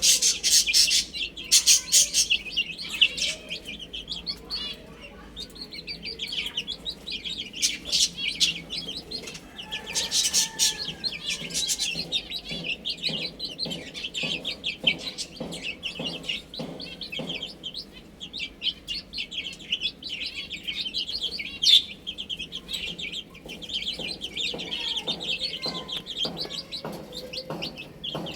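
Baby chicks peeping: many short, high-pitched chirps in quick, continuous succession, loudest at the start and again around the middle.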